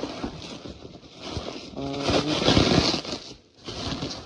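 Packaging rustling and scraping as toy parts are handled and pulled out of a box, uneven and scratchy.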